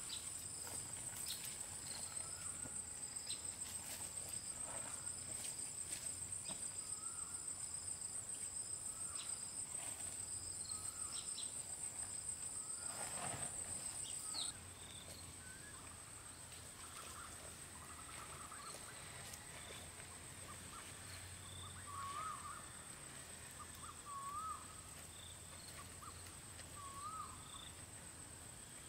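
Insects trilling steadily at a high pitch with a fast pulse, dropping in level about halfway through. A few light clicks come in the first half, and a bird gives short wavering calls every couple of seconds near the end.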